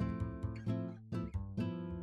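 Background music: instrumental acoustic guitar, a quick run of plucked notes.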